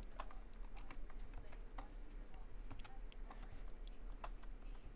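Computer keyboard keystrokes: scattered, irregular clicks, typical of shortcut keys being pressed while working in 3D software, over a steady low hum.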